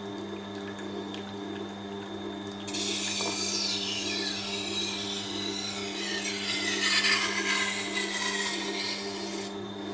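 Tormek wet sharpening machine running with a steady hum; from about three seconds in, a knife blade held in the KJ45 jig is drawn across the wet grindstone, a gritty hissing scrape that stops near the end.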